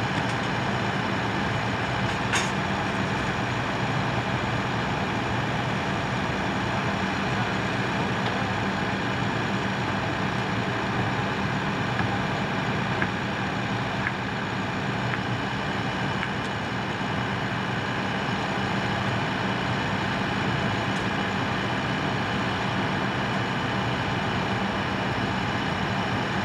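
An engine running steadily with an even hum, with a few faint sharp clicks on top.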